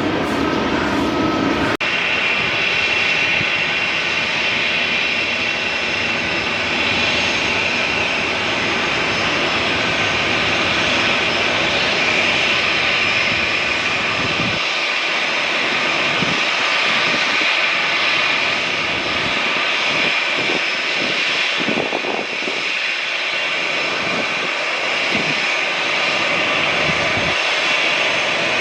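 Boeing 737-900ER's CFM56-7B turbofan engines running, a loud, steady jet roar with a strong high whine. The sound changes abruptly about two seconds in.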